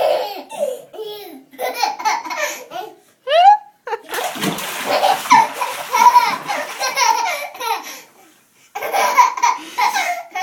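A 14-month-old baby belly-laughing in a bathtub in repeated bursts, with a short rising squeal about three seconds in and water splashing.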